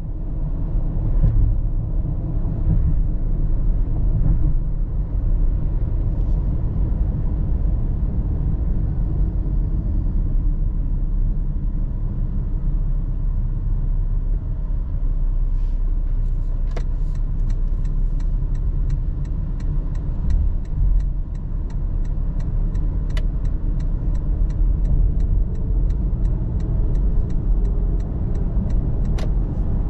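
Car driving at speed, heard inside the cabin: a steady low rumble of road and engine noise. About halfway through, a regular clicking of about two clicks a second starts and keeps going, typical of the turn-signal indicator during a merge.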